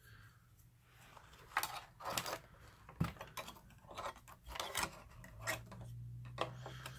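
Scattered light clicks and clatter of a computer motherboard being handled and shifted on the floor. A low hum comes in near the end.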